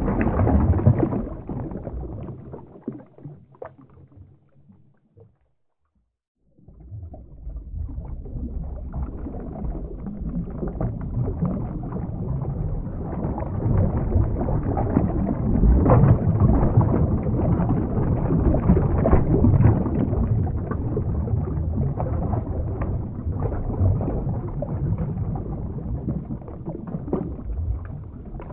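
Underwater ambience sound effect: a low, rumbling rush of water. It fades away a few seconds in, stops for about a second, then starts again and builds up.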